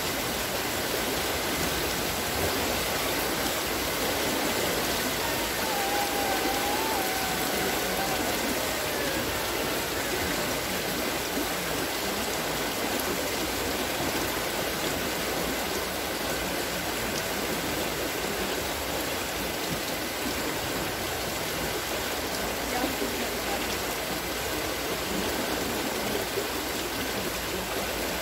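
Steady splashing and pouring of water spilling from the buckets of a turning wooden water-lifting wheel onto the ground below.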